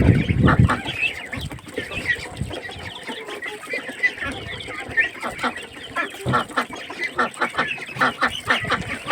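A flock of poultry clucking and calling as they crowd in, with many short, sharp knocks throughout and a heavier low thumping in the first second.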